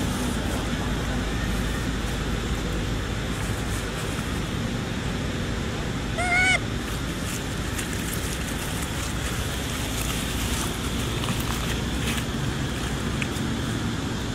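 A macaque's single short call, rising and falling in pitch, about six seconds in, over a steady background of outdoor noise.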